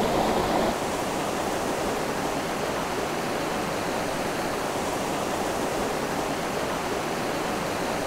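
Small woodland waterfall cascading over rocks: a steady rush of water, dropping slightly in level about a second in.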